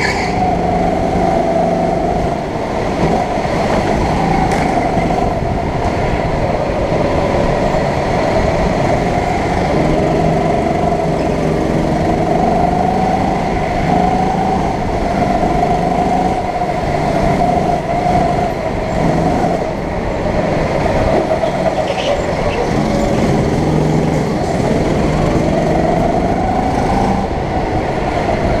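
Rental go-kart running at racing speed, heard close from the driver's seat, its motor note rising and falling again and again as it accelerates and brakes through the corners.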